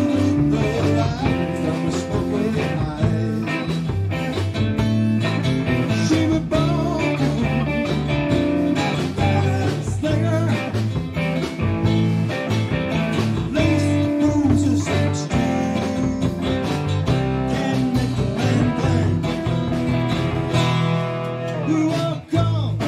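Live band playing electric guitars, electric bass guitar and drum kit through amplifiers. The music drops out briefly near the end.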